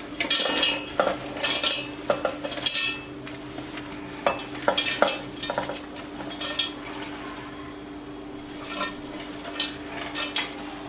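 Irregular metal clinks and knocks of a mixer-grinder jar and spoon being handled as pounded pieces of dry ginger, licorice root and galangal are put in, over a faint steady hum.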